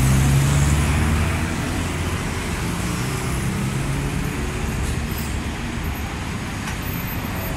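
Heavy road traffic: motorcycles, cars and a city bus running past and into a roadside stop. A low engine hum is loudest in the first second or so, over a steady traffic hiss.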